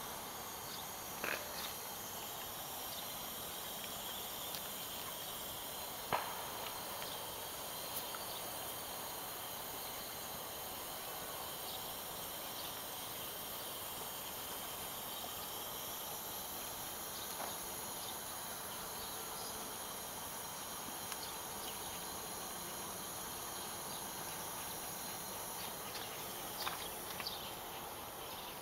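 Quiet outdoor ambience: a steady high-pitched hiss, with a few faint knocks or clicks scattered through, the loudest about six seconds in.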